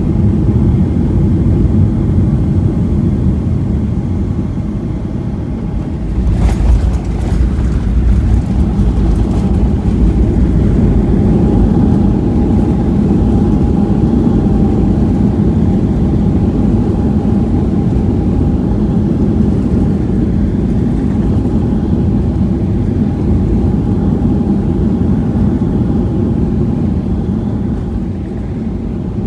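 Loud, steady rumble of airliner cabin noise. A quick cluster of rattling clicks comes about six seconds in, and a steady hum joins the rumble a few seconds later.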